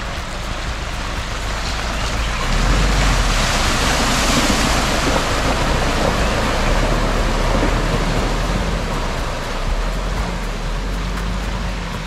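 Pickup truck driving through a shallow river ford, its tyres churning up a rushing splash of water over the low run of its engine. The splashing builds about two seconds in and eases off near the end as the truck pulls away.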